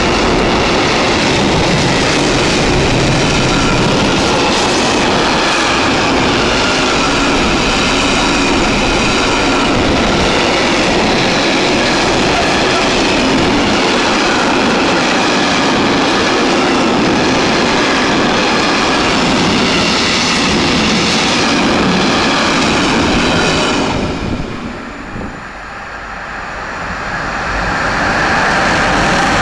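A long freight train of tank and hopper wagons rolls past close by, with a loud, steady rumble and clatter of wheels on the rails. About 24 seconds in, the sound drops off suddenly. Then a second freight train, hauled by an electric locomotive, is heard approaching, growing louder toward the end.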